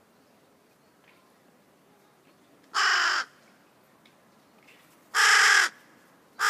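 Crow calling close by: two loud caws, each about half a second long, the first about three seconds in and the second about two and a half seconds later, with a third caw starting just at the end.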